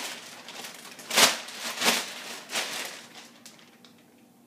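Large plastic shopping bag rustling and crinkling as it is unfolded and shaken open by hand, with three louder swishes about a second apart, then dying away.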